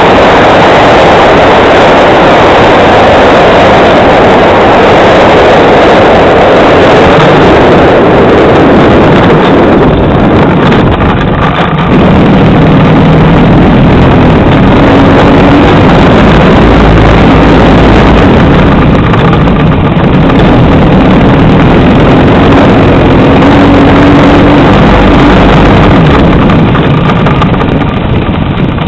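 OS FS 91 four-stroke glow engine running in flight, heard from a wing-mounted camera with heavy wind rush over the microphone. About twelve seconds in, the engine note changes and a lower steady tone comes through.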